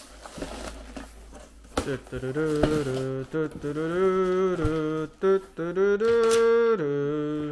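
A person humming a tune in held notes that step up and down in pitch. In the first two seconds, the cardboard flaps of a shipping box rustle and knock as they are opened.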